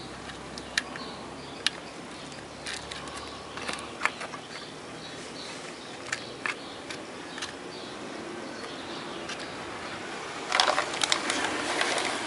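Light scattered clicks and taps of fingers handling an amplifier circuit board while an 8-pin TL072 op-amp chip is fitted in place, over a faint steady hiss. Near the end comes a louder, denser patch of rustling and crackling.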